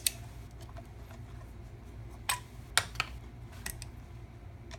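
A few sharp clicks and light taps from handling a small metal-cased guitar pedal and its parts, over a steady low hum.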